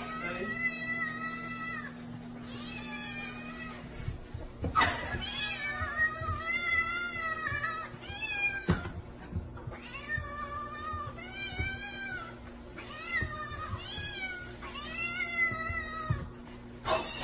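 Domestic cats meowing insistently: a string of about nine long, drawn-out meows, each rising and then falling in pitch, with short gaps between them.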